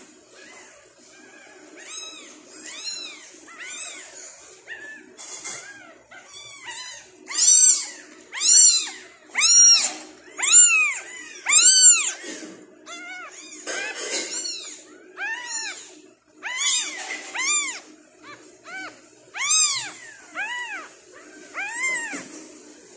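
Newborn tabby kitten crying for food: a run of high, thin meows, about one a second, each rising then falling in pitch, loudest through the middle of the run.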